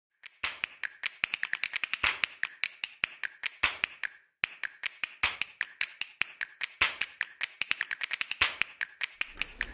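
A rapid, irregular series of sharp clicks, several a second, with a short pause a little after four seconds.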